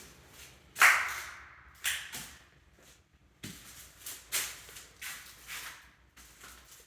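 A series of irregular knocks and rustles, the loudest a sharp knock about a second in that rings briefly.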